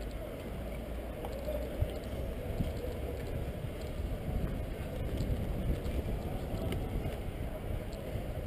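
Steady low rumble of outdoor city ambience and wind on the microphone of a camera carried on foot, with a few faint knocks.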